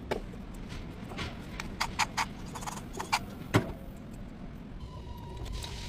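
Scattered sharp metallic clicks and knocks, typical of hand tools at work on a Yukon's engine, over a low rumble. About five seconds in, a steady whine starts.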